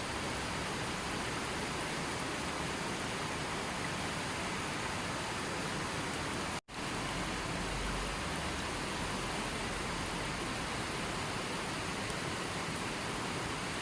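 Steady, even rushing of water, with no distinct drops or splashes; it cuts out for an instant about halfway through, then resumes unchanged.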